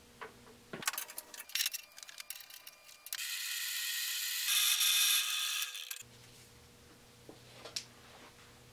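Sharp metallic clicks and rattling, then a benchtop drill press running for about three seconds with a steady high whine. The whine gets louder about halfway through, as a center drill cuts into the end of a cold-rolled steel bar, and it cuts off suddenly.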